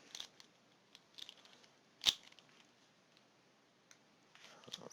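Faint handling of plastic speed cubes and their packaging: a few small scattered clicks, with one sharp plastic click about two seconds in.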